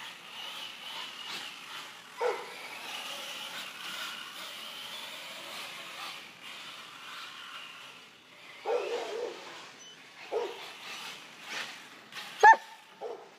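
A dog barking, single barks and a short run of them, the loudest near the end, over the faint steady whine of an electric RC monster truck's motor.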